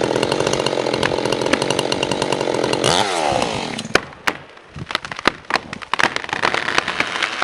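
Chainsaw running steadily at high revs, then winding down about three seconds in as the throttle is let off. Several sharp cracks and snaps follow, with the noise building again near the end.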